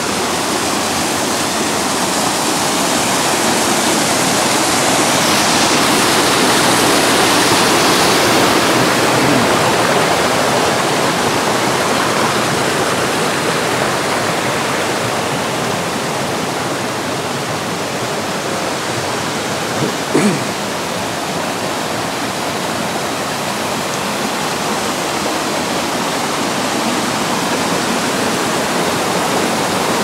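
Rushing water of a small mountain waterfall and the rocky creek below it, a steady hiss, with one brief knock about two-thirds of the way through.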